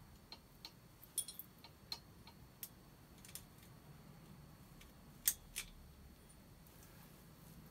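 Scattered light metallic clicks and taps as a seat-pin binder bolt and brake cable hanger are handled and fitted into a steel bicycle frame's seat lug by hand, with a louder pair of clicks about five seconds in.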